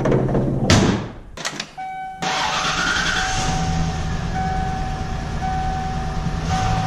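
A few knocks and thuds, then a steady warning tone. About two seconds in, the 1995 Ford F-150's 5.8-litre (351) V8 starts and settles into a steady idle, still a little shaky.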